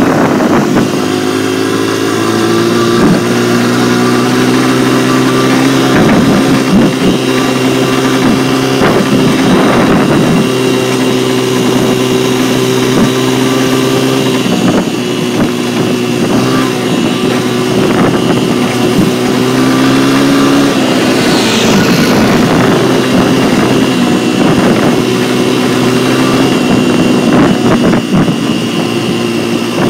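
Dirt bike engine running steadily at riding speed, heard from on the bike, with scattered knocks and rattles. Its pitch dips briefly twice, about halfway through and again a few seconds later.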